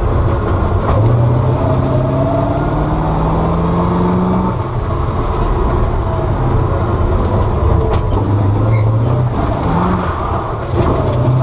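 Bizzarrini 5300 Strada Competizione's 5.3-litre naturally aspirated Chevrolet V8 under hard acceleration. Its pitch climbs, drops back about four and a half seconds in, climbs again, and drops once more near the end before rising again.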